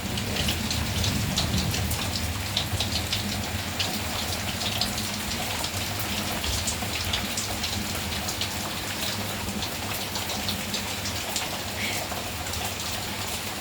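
Steady rain falling, with many separate sharp drop hits on surfaces heard over a continuous hiss.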